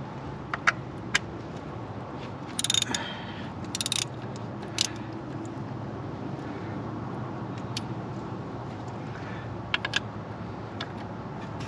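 Metal hand tools clinking and rattling in short groups of sharp clicks, over a steady low hum.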